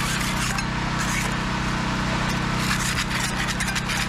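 Barnacles being scraped off a boat propeller in repeated rasping strokes, over a steady low hum.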